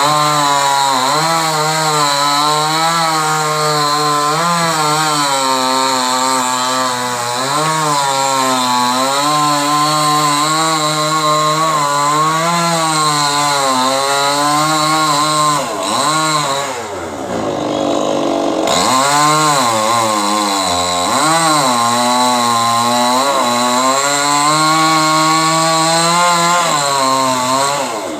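Chainsaw running at high revs while cutting coconut palm wood, its pitch wavering under load. About two-thirds of the way through the revs fall away for a moment as the throttle is eased, then climb again, and they fall once more at the very end.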